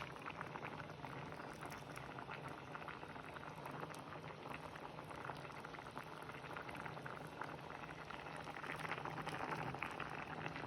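Thick coconut-milk sauce simmering in a pan, bubbling with a steady run of small pops.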